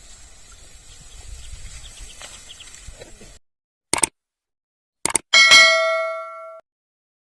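Faint outdoor field noise that cuts out about three seconds in, then two short clicks and a single loud metallic bell ding that rings for about a second before cutting off abruptly.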